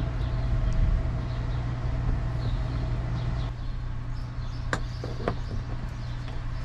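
Tractor engine running steadily, with two sharp clicks close together about three quarters of the way through.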